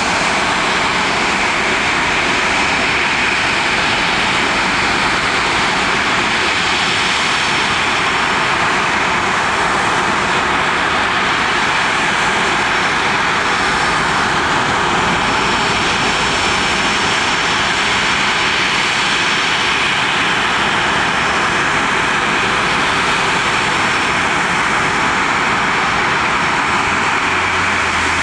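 Jet airliner engines running, a steady loud rushing noise with a faint high whine that holds level without rising or fading.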